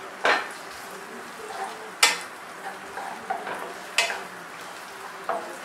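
Diced onion and curry leaves sizzling steadily in hot oil in a nonstick frying pan while a wooden spatula stirs them, with four sharp scrapes of the spatula against the pan.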